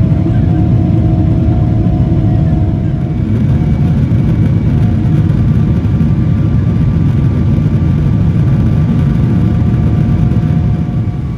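Boeing 777-300ER jet noise heard inside the cabin from its General Electric GE90-115B engines: a loud, steady low rumble with a few thin steady tones over it. It eases slightly near the end.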